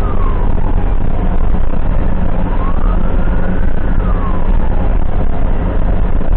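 Ambulance siren in a slow wail, its pitch rising and falling about once every four seconds, over a loud, steady low rumble of engine and road noise from the moving vehicle.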